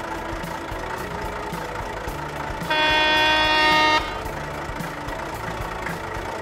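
A truck horn sound effect honking once, held for just over a second about three seconds in, over a steady idling truck-engine sound effect.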